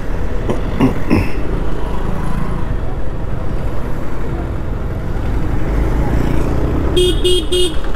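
Steady wind rush and road noise from riding a Yamaha Aerox 155 scooter at road speed. About seven seconds in, a vehicle horn beeps three times in quick succession.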